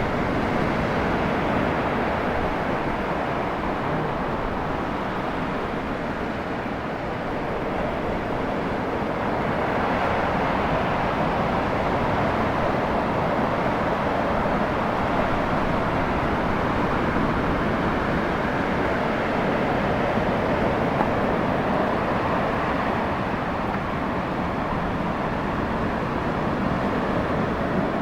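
Ocean surf breaking, a steady rushing roar with no separate crashes standing out.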